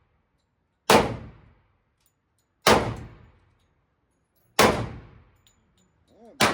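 Four gunshots fired at a slow, even pace, about two seconds apart, each followed by a ringing echo that dies away.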